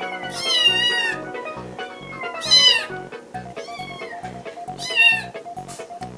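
Japanese Bobtail kitten mewing four times, high-pitched, the first call long and the loudest ones about two and a half seconds in and near the end, over background music with a steady beat.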